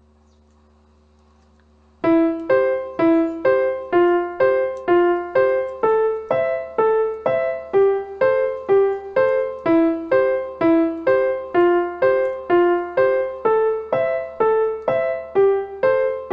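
Background music: a piano playing a steady run of evenly spaced single notes, about two a second, starting about two seconds in after near silence.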